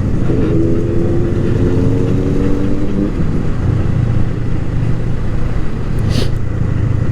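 Honda Rebel 500's parallel-twin engine running under way, with wind rush on the helmet mic; the revs climb steadily for the first three seconds as it accelerates, then settle into a steady rumble.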